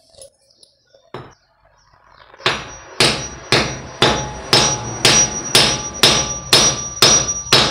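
Claw hammer striking a small metal piece held on the head of a sledgehammer used as an anvil, metal on metal. There is one blow about a second in, then a steady run of blows about two a second from two and a half seconds on, each with a short metallic ring.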